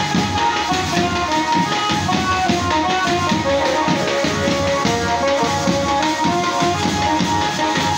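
Casio SA-41 mini keyboard playing a devotional melody one note at a time over its own built-in accompaniment, a steady, evenly paced drum rhythm.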